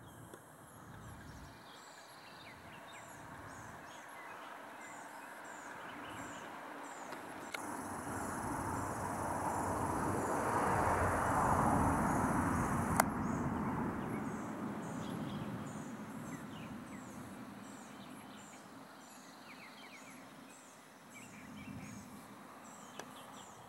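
Outdoor morning ambience: small birds chirping over and over in the background while a passing vehicle's rush of noise swells to a peak about halfway through and fades away. A single sharp click comes just after the peak.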